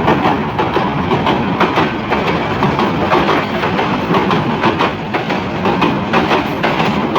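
Bangladesh Railway passenger train running along the track, with a steady, dense rattle and clatter of wheels over the rails.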